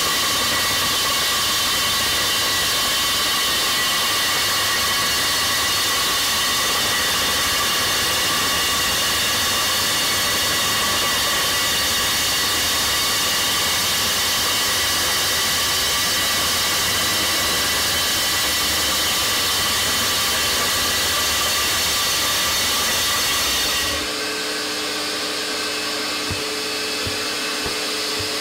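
RT-160 core drill running steadily, its core bit grinding into Poroton brick, with a dust vacuum running alongside. Near the end the drill stops and only the vacuum's steady hum remains.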